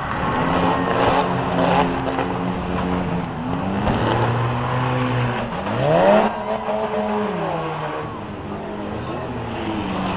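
Several small demolition-derby cars' engines running and revving at once, their pitches overlapping. One engine revs up sharply about six seconds in. A few sharp knocks sound among them.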